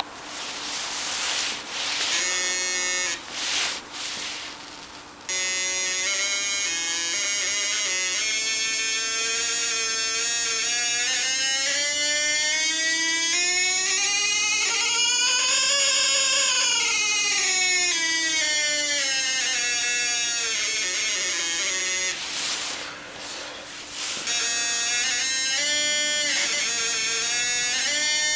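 An Arduino theremin's small loudspeaker gives a buzzy square-wave tone that jumps between the notes of a two-octave musical scale as a hand moves nearer to or farther from its ultrasonic distance sensor. In the middle it climbs note by note to a high peak and steps back down, with quicker jumbled note changes near the start and near the end.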